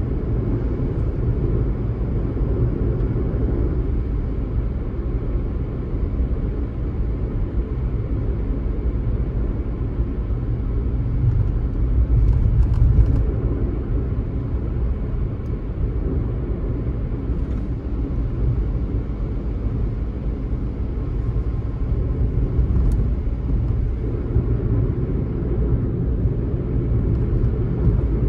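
Car driving at a steady cruising speed: a continuous low rumble of tyre and road noise and engine, a little louder about twelve seconds in.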